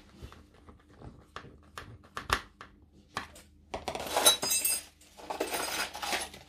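Small clicks and clinks of a screwdriver and small plastic kit parts handled on a workbench. Then two longer spells of louder rattling and rustling, about four and five and a half seconds in, as parts are picked through.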